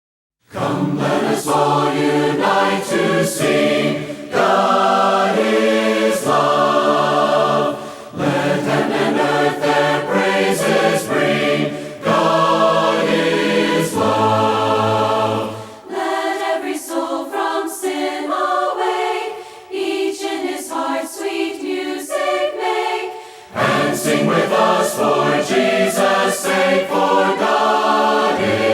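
A choir singing a hymn in harmony, a cappella, starting about half a second in. Midway the low voices drop out for several seconds, leaving the upper parts, then the full harmony returns.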